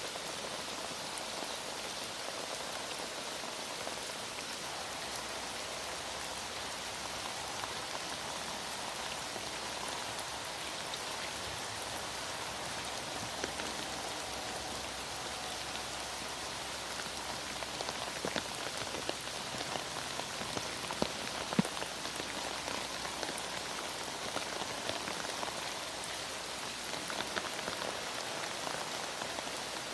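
Heavy rain falling steadily, with scattered drops ticking and one sharp click about two-thirds of the way through.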